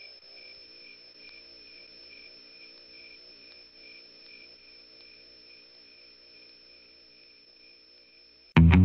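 A faint, steady, high-pitched insect-like trill, one of its tones pulsing evenly, over a low wavering drone. Loud electric-guitar music cuts in abruptly just before the end.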